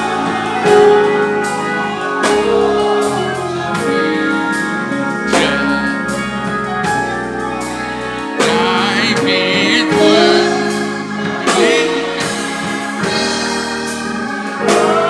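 Gospel music from a church band: held chords and a steady beat, with voices singing over them.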